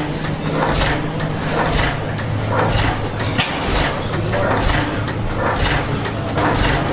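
Antique stationary engines running together: a steady low hum under irregular clattering and knocking.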